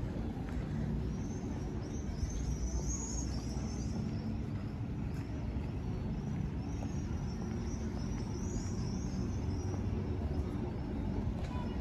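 Steady low engine rumble, with a small bird twittering in quick high chirps in two spells, about a second in and again past the middle.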